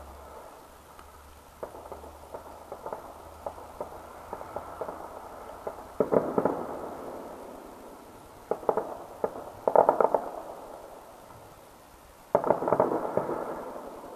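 Distant fireworks popping and crackling: scattered single pops, with dense volleys of rapid cracks about six seconds in, around nine to ten seconds, and again just after twelve seconds.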